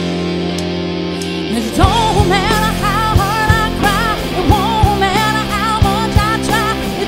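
Rock band playing live: guitars hold a sustained chord with no drums for about the first second and a half, then the drums come back in with a steady beat and a woman's singing voice enters over the band.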